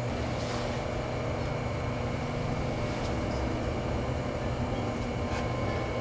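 Electric potter's wheel motor humming steadily, with a few faint knocks as the wheel bat and trimming grip are handled.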